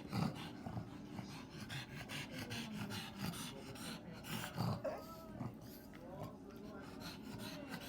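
Pug breathing hard in quick, noisy snorting pants while begging for food, with a few brief higher-pitched sounds about five to six seconds in.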